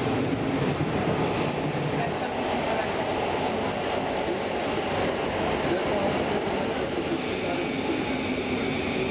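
Stockholm commuter rail Class X10 electric multiple unit running at speed, heard from aboard: a steady rumble and rush of wheels on the track. A high whine comes in about a second and a half in, fades near the middle, and returns as several steady high tones toward the end.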